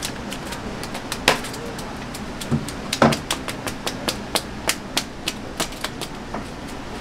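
A club knocking a live mullet on the head against a wet floor to stun it. Two hard knocks come first, then a quick run of lighter knocks, about three a second, that stops about six seconds in.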